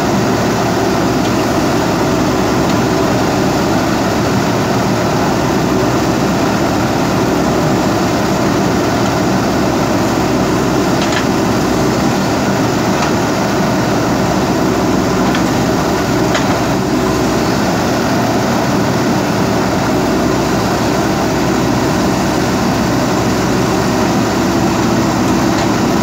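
JCB 3DX backhoe loader's diesel engine running steadily while its rear backhoe arm digs the bank. A few faint clicks come in the middle.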